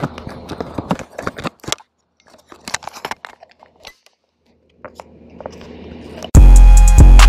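Clicks, knocks and rattles of a bicycle and its mounted camera being handled, broken by two short silences. About six seconds in, loud music with a heavy drum beat and deep bass cuts in abruptly.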